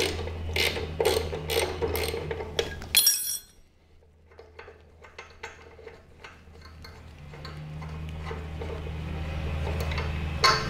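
Ratcheting wrench clicking in a quick regular rhythm, about two to three clicks a second, as a spring-plate bolt on a VW swing axle is loosened; it stops about three seconds in. Then the bolt is turned out by hand with faint metal clicks and clinks, and a sharper metal clink near the end.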